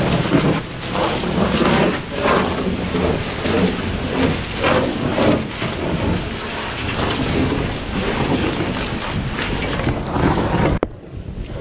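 Loud, rough rumbling noise of a burning building and the fireground, heard close on a firefighter's helmet camera while he climbs an aluminium ladder. Hands and boots knock on the rungs. The noise drops sharply about a second before the end.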